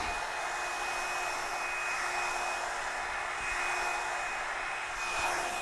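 Hair dryer running steadily: an even rush of blown air with a thin, steady motor whine.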